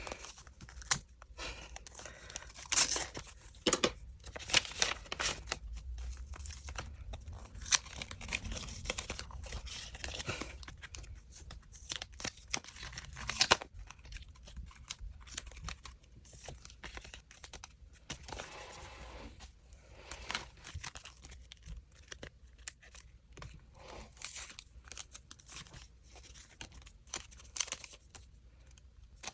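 Packaging being torn open and crinkled by hand: irregular rips and rustles, with a few sharper tears now and then.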